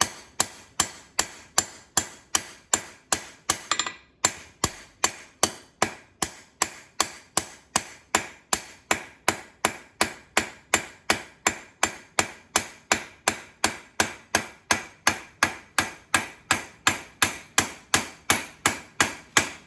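Blacksmith's hand hammer striking a 5/8-inch coil-spring bar on an anvil in a steady rhythm, about two and a half blows a second, each blow with a short bright ring, and a brief break about four seconds in. The hammering rounds up the short taper on the end of the bar from octagon.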